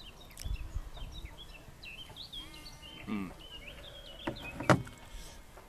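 Songbirds chirping and singing in the background, with a few low rumbles of wind on the microphone early on. A single sharp knock about three-quarters of the way through is the loudest sound.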